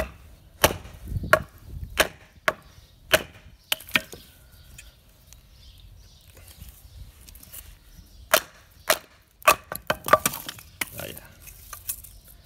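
Taramundi 445 fixed-blade knife chopping into a very dry pine stick: a series of sharp, woody knocks about one or two a second. There is a quieter pause in the middle, then another quick run of chops near the end.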